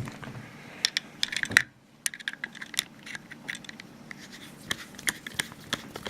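Irregular small clicks, taps and scrapes of the grip panels and grip screw being fitted to an 1879 Reichsrevolver by hand, with a brief pause just under two seconds in.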